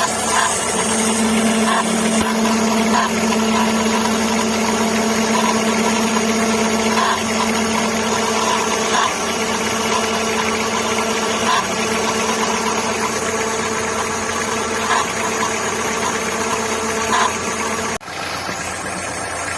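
Volkswagen Gol G5 engine idling with a steady whine and a light tick now and then. This is the strange running noise that is traced to a worn accessory belt on the air-conditioning compressor.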